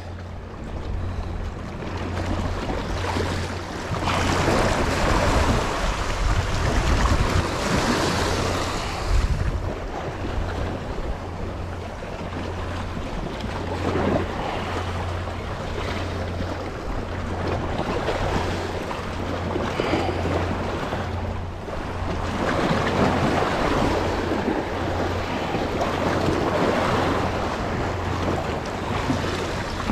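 Sea waves washing against the jetty rocks in slow surges that swell and ease, with wind buffeting the microphone.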